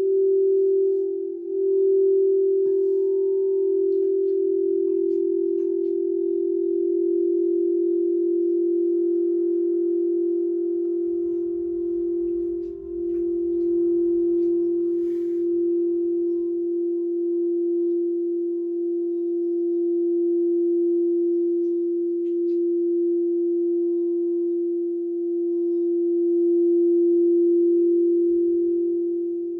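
Singing bowl sounding one long, steady low tone with a fainter higher overtone above it, held without fading.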